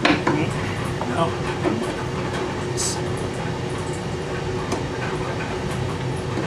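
Light metal clicks and a sharp knock from hand tools working at a stuck roll pin on a hydraulic lift cylinder mount, over a steady mechanical hum. A short hiss comes about three seconds in.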